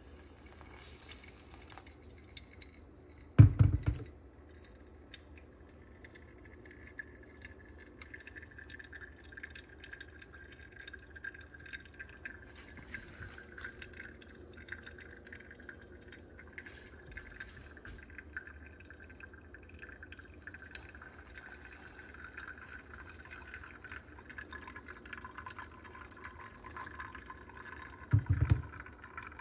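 Liquid pouring steadily into a vessel for most of the stretch, with two heavy thumps about three seconds in and again near the end.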